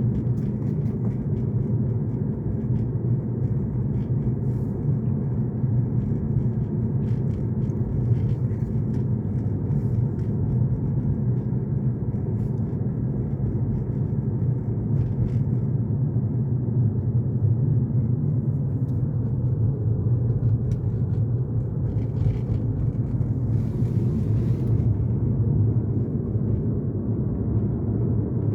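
Steady low road and tyre rumble of a 2020 Tesla Model 3 driving over a rough, bad road, heard from inside the cabin, with faint scattered ticks and knocks and a brief hiss late on.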